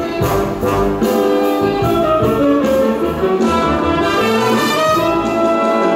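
Orchestral show-tune backing track, with brass carrying the melody over a full band.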